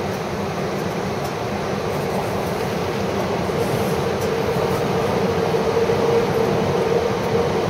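Shinkansen Class 923 'Doctor Yellow' electric inspection train running past on elevated track, a steady rushing rail noise that grows louder from about halfway through as the train draws alongside.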